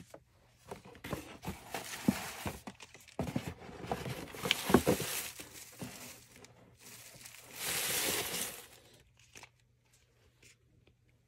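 White paper packing filler crinkling and rustling as it is pulled out of a cardboard shipping box and handled around paper gift bags, loudest near the middle and tailing off toward the end.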